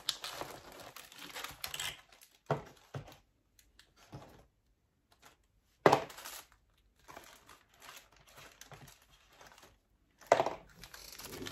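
Plastic packaging crinkling and rustling in irregular bursts as a stack of small retail packets of fishing flies is handled and sorted, with two louder crackles about six and ten seconds in.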